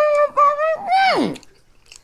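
A person's voice making a drawn-out, high-pitched vocal sound: two held notes that slide down and stop about a second and a half in, followed by quiet with a few faint clicks.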